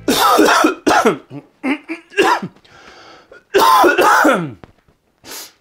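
A man coughing and clearing his throat, about half a dozen loud separate coughs, the heaviest at the start and about three and a half seconds in: a cough from being ill.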